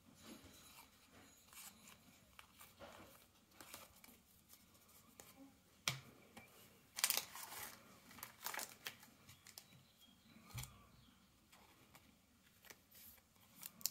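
Faint rustling and light clicks of trading cards being flipped through and set down on a table, with a sharper tap about six seconds in.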